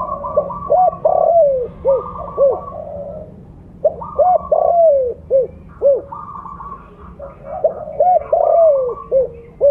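Spotted dove cooing: three phrases of several arched coo notes that rise and fall in pitch, repeated about every four seconds.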